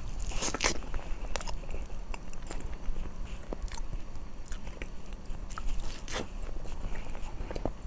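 Close-miked eating sounds from a soft, cream-layered purple crepe cake: bites and chewing with many short smacking clicks. They are densest at the first bite and again about six seconds in, over a low steady hum.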